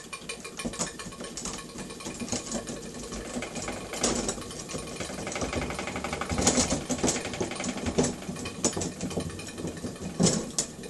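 Small live-steam engine (a Märklin 4097 engine unit fed from a homemade boiler) running under load, a rapid, even mechanical clatter as it winds the rope drum and hauls a model traction engine up the incline. A louder knock comes near the end.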